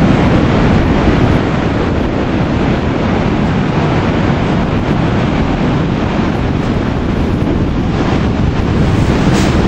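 Wind buffeting the microphone over the steady wash of Atlantic surf breaking on a sandy beach.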